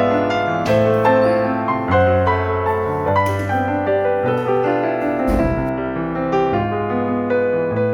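Background piano music: a gentle melodic piece with chords and a flowing melody.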